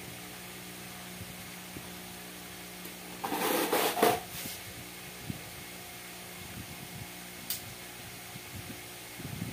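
Steady machine hum, with a loud rasping noise for about a second starting a little over three seconds in and a single sharp click near the end.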